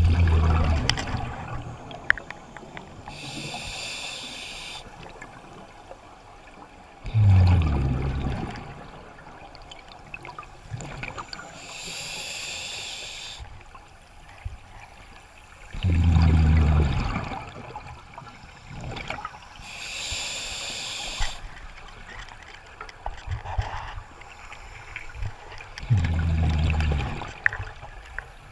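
Scuba breathing through a regulator underwater. About every nine seconds there is a short, loud, low rush of breath, and a few seconds later a bright hiss of bubbles lasting a second or two.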